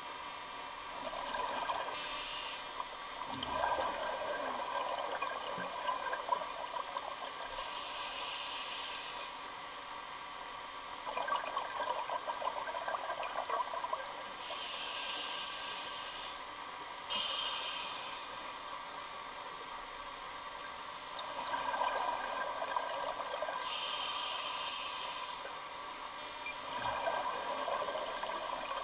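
Scuba diver breathing through a regulator underwater: a short hissing inhale through the demand valve, then a longer bubbling exhale. There are about four slow breaths, each some six or seven seconds apart.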